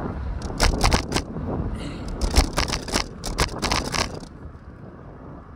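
Wind and road rumble on a fixed-gear bicycle ride. Over it comes a cluster of sharp clicking, scraping rattles for about four seconds, which stops near the end.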